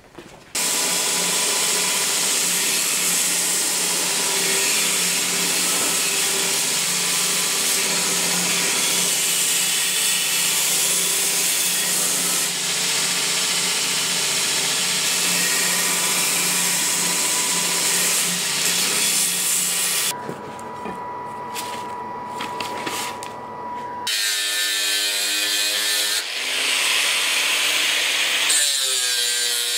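Belt grinder running with a leaf-spring steel bowie blade held against the belt: a steady, loud grinding hiss that eases off at about 20 s. About 24 s in, a handheld angle grinder takes over, its whine dipping in pitch twice as it bites into the steel.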